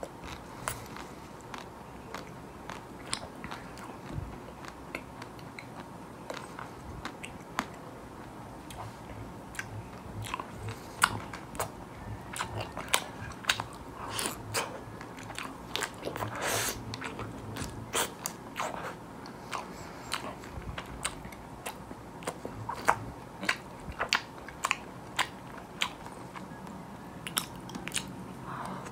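Biting and chewing a chocolate-coated ice cream bar with nut pieces, its hard chocolate shell cracking in many sharp crackles and crunches that come more often in the second half.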